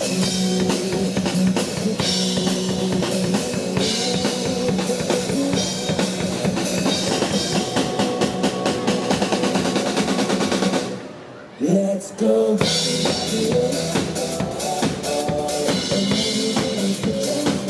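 A drum kit played fast and hard over a pop-rock backing track. About eleven seconds in the music briefly drops away, then comes back in at full level.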